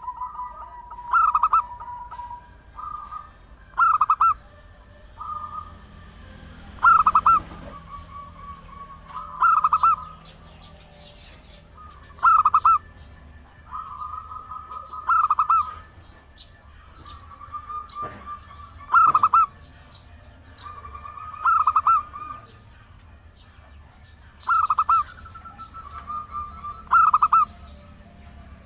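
Female zebra dove (perkutut) calling to males: a loud, short cooing phrase about every two and a half to three seconds, with softer rolling coos between.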